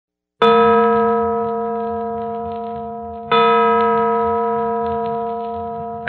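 A church bell tolls twice, about three seconds apart, each stroke ringing on and slowly fading.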